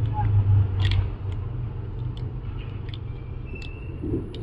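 A few light metallic clicks and scrapes as a flathead screwdriver pries the brake pads apart inside a motorcycle's front brake caliper, over a steady low background rumble that is louder in the first second.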